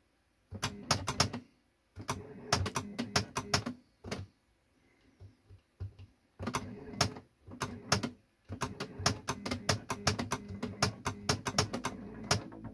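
Keys being pressed on a rotring CS 100 keyboard, in bursts of rapid plastic clicks broken by short pauses. A low hum comes and goes with the bursts.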